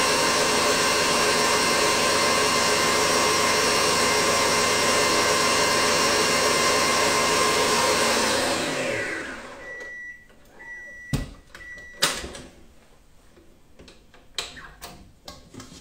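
Stand mixer motor running steadily at high speed, whipping marshmallow mass, then switched off about eight seconds in and winding down. Three short beeps follow, then a couple of sharp clicks and knocks as the mixer head is raised and the whisk lifted out of the steel bowl.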